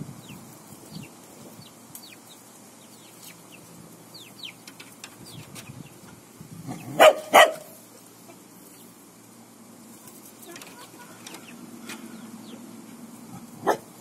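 Chickens clucking, with many short high chirps throughout. Two loud sharp calls come close together about halfway through, and one more shortly before the end.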